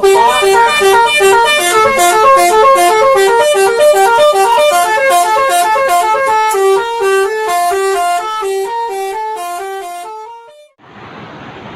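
Bus 'telolet basuri' musical horn playing a fast tune of stepped notes. It cuts off abruptly about ten and a half seconds in and is followed by a quieter steady hiss.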